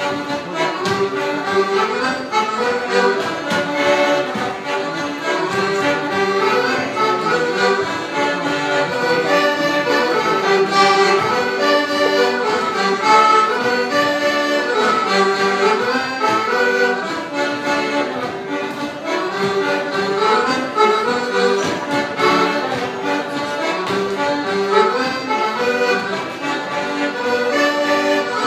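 Accordion-led traditional Irish dance music, a fast jig or reel tune of quick, even runs of notes that carries on without a break.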